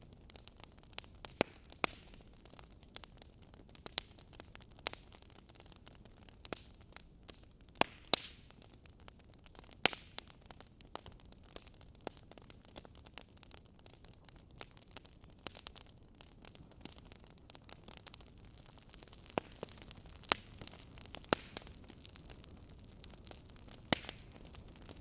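Wood fire crackling: irregular sharp pops and snaps, a few seconds apart, over a low steady hiss.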